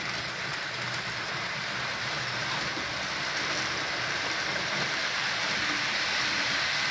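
Model freight train running on the layout's track: a steady rush of metal wheels rolling on the rails together with the locomotive's motor, growing slightly louder as it goes.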